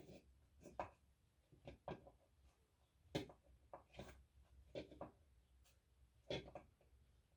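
Faint, irregular light knocks and clicks, about a dozen over several seconds, over a low steady hum.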